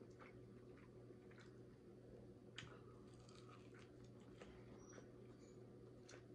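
Faint close-miked chewing of crispy fried chicken, with scattered soft crunches and mouth clicks over a steady low hum.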